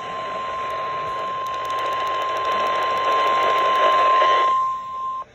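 National Weather Service 1050 Hz warning alarm tone, one steady high pitch held for about five seconds and cut off just before the end, signalling that a warning broadcast is about to follow. A steady hiss runs under it and drops away about four and a half seconds in.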